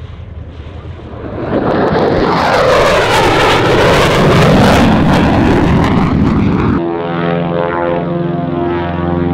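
A Vought F4U Corsair's Pratt & Whitney R-2800 radial engine at takeoff power as the plane runs past. It swells loud about a second and a half in, its tone sweeping up and down during the pass. Near the end it cuts off abruptly and is replaced by the steady, pulsing drone of a propeller plane's engines.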